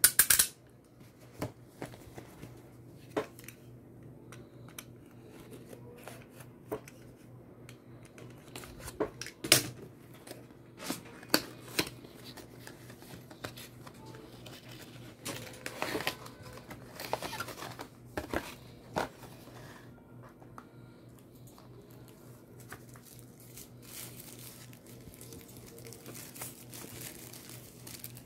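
Hands unboxing a mobile phone: cardboard box and inner tray being opened and handled, with packaging crinkling and tearing and scattered sharp taps and clicks. There is a loud crackle right at the start and a longer run of rustling about halfway through, over a steady low hum.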